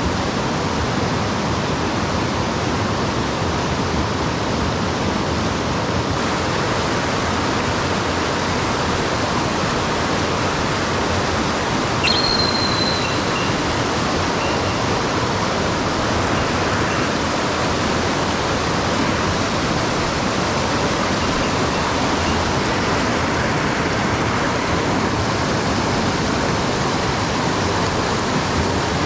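Steady rushing of a mountain stream. About twelve seconds in, one short, sharp, high-pitched sound cuts through it.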